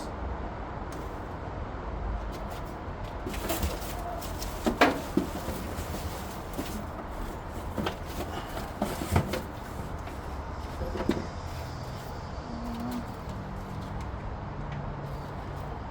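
Loose metal engine parts and tools being handled: scattered clinks and knocks, the sharpest about five and nine seconds in, over a steady low background hum.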